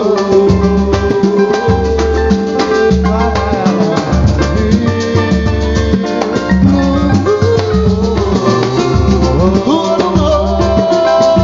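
Samba music from a roda de samba group: a steady beat with a low drum pulse about once a second under sustained melody lines.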